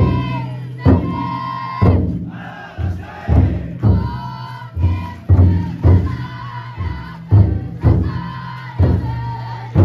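The big drum inside a futon-daiko festival float beaten heavily, about one stroke a second, under many voices chanting together in unison.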